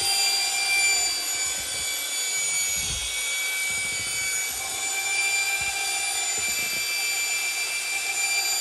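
Electric drill turning a mixing paddle through a bucket of drywall joint compound, mixing the mud smooth before use: a steady high motor whine, with uneven low churning from the paddle working the mud.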